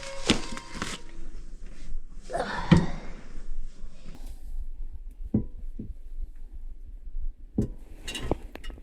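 Scattered knocks and clunks of hard objects being handled, about six in all, with a short rustle between the first ones.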